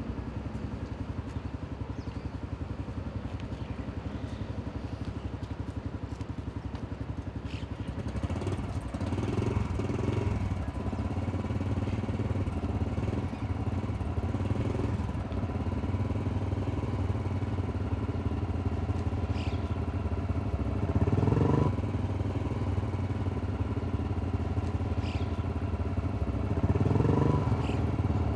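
Motor vehicle engine running steadily with a fast, even throb. It grows louder about eight seconds in and swells briefly twice later on. A few faint, very short high squeaks sound over it.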